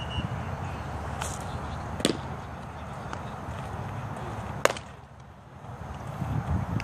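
Sharp pops of a baseball smacking into leather gloves: one about two seconds in, as the pitch reaches the catcher's mitt, and a louder one near the five-second mark, over steady outdoor background noise.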